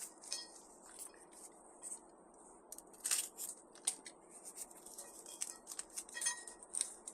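Light, scattered rustling, clicks and clinks as smoker parts and their packaging are handled and unpacked.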